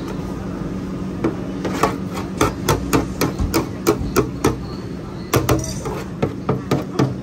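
A metal scraper blade knocking sharply on a stainless-steel counter while a thin dough sheet is worked, about three taps a second. There are two runs of taps, with a short pause a little past halfway, over a steady low background hum.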